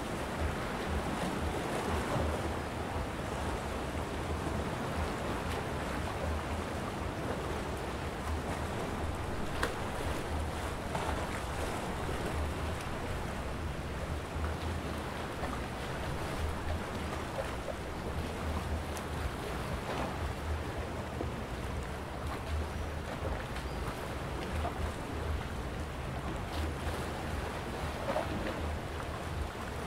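Small sea waves washing against shoreline rocks in a steady wash, with a low, gusty rumble of wind on the microphone underneath.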